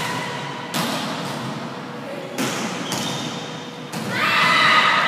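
A volleyball being struck during a rally, four sharp slaps of hands and arms on the ball, each ringing on in the large hall. Just after the last hit, players' voices call out and are the loudest sound.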